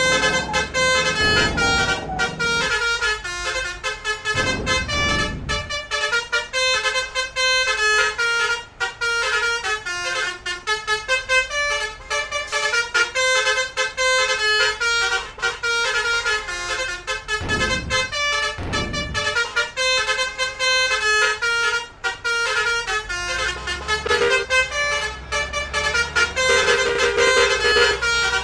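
Basuri musical air horn on a bus playing a quick 'telolet' tune, short horn notes following one another rapidly. A vehicle engine swells a few times underneath.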